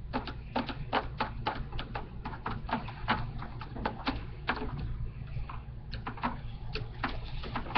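A plastic stirring stick clicking and scraping against the sides of a small plastic tub while stirring a thick lotion and shampoo mixture, a few irregular clicks a second.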